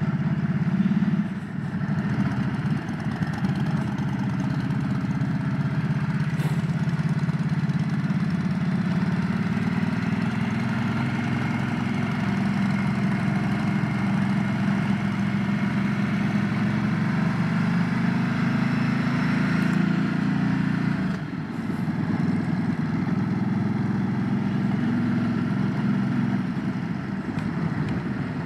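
Motorcycle engine running steadily while riding, with the level dipping briefly about a second and a half in and again around twenty-one seconds in.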